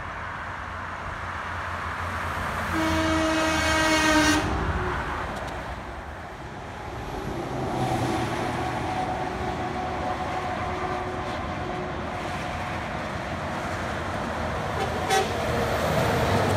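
Highway traffic passing, with the steady noise of tyres and engines on the road. About three seconds in, a vehicle horn sounds once on a single pitch for about a second and a half.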